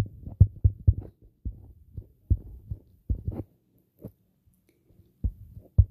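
Stylus tapping and scraping on a tablet's screen during handwriting, heard as irregular dull knocks: quick in the first second, sparser after.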